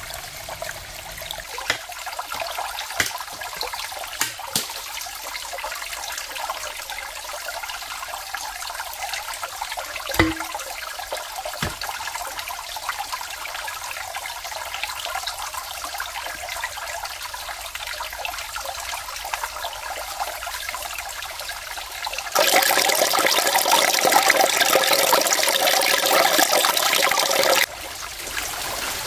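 Steady rain with scattered sharp drips and taps. About three-quarters of the way through, a much louder rush of water sets in suddenly, holds for about five seconds, and stops just as suddenly.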